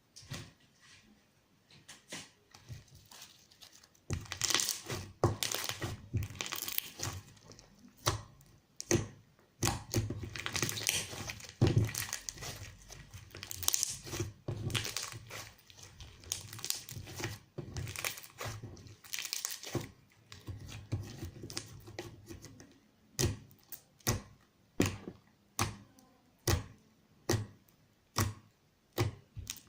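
Hands squeezing and kneading slime, making irregular crackling, squishing sounds. From about two-thirds of the way in, these give way to a steady run of sharp pops about every half second, like air pockets popping as the slime is pressed.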